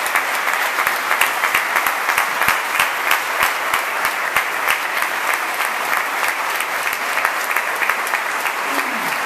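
Audience applauding steadily, a dense wash of clapping with single nearby claps standing out sharply.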